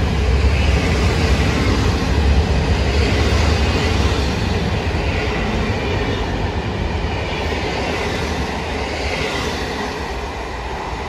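PKP Intercity passenger coaches rolling past on the platform track, their wheels running on the rails with a low rumble. The sound fades from about six seconds in as the last coach passes and the train moves away.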